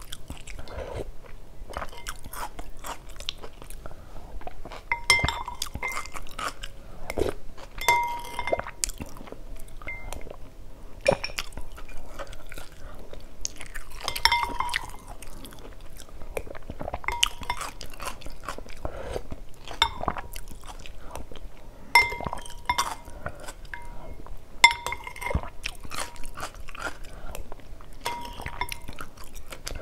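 Close-up chewing of chicken-offal phở, with a metal spoon clinking against a glass bowl again and again, some clinks ringing briefly.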